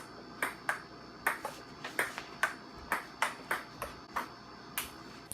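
Table tennis rally: the ball clicks back and forth off the paddles and the table, about three hits a second.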